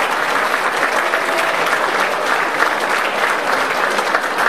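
Audience applauding steadily: dense, continuous clapping from many hands.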